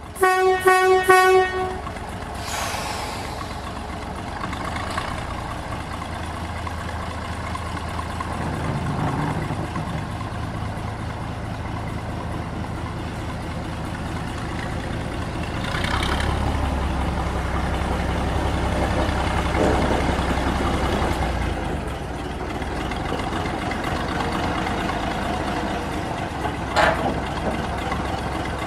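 A narrow-gauge locomotive sounds a few short, loud toots in quick succession at the start. A steady low engine rumble then carries on throughout, with occasional clanks.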